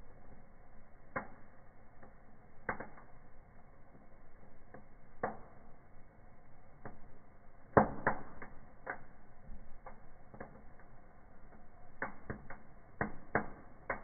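Fire crackling in a fireplace as conifer branches and wood burn, with irregular sharp pops and snaps over a low steady hiss. The loudest pop comes about eight seconds in, and a quick run of pops comes near the end.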